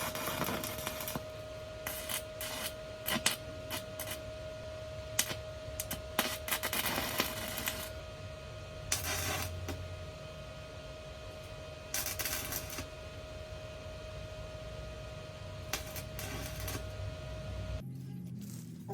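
Irregular clicks, knocks and short rustles from small objects being handled, over a steady faint whine that cuts off suddenly near the end.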